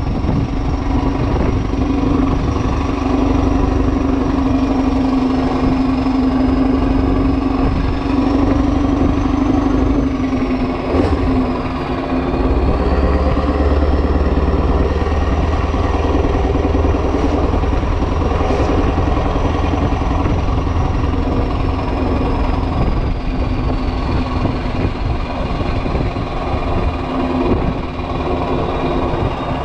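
Renault Magnum's 16.4-litre Mack E9 V8 diesel running on an open exhaust: a steady, loud engine note with a high turbo whistle above it that wavers in pitch and sinks toward the end. The low rumble grows heavier about twelve seconds in.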